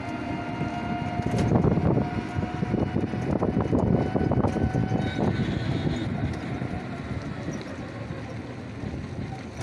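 A vehicle's engine running and rattling while driving, with road and wind noise, heard from aboard an open-sided vehicle. A faint steady whine sits over the rumble for about the first half.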